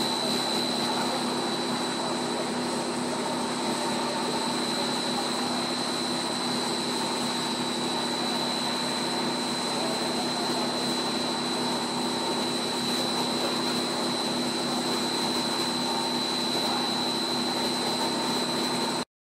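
Monolayer blown film extrusion line running: a steady machine hum and hiss with a constant high whine, cutting off abruptly near the end.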